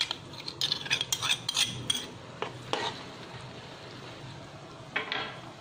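A spoon scraping and clinking against a small ceramic bowl as chili sauce is scraped into a wok. Under it, and then on its own, the steady hiss of tamarind sauce heating on high heat.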